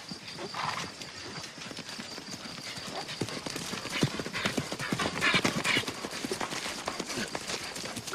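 Hoofbeats of a ridden horse coming closer at pace, growing louder and thicker about four to six seconds in.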